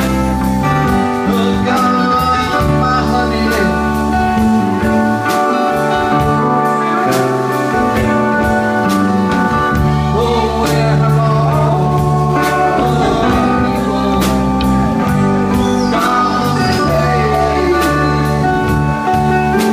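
Live band music: a man singing over electric guitar, with a steady beat of sharp strikes underneath.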